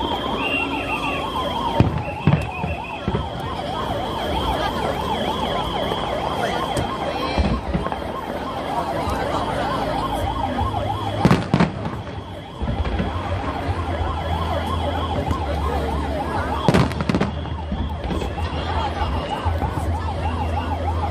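A 119 ambulance siren sounds continuously in a fast warble. A few sharp bangs from fireworks bursts break in, the loudest about two, eleven and seventeen seconds in.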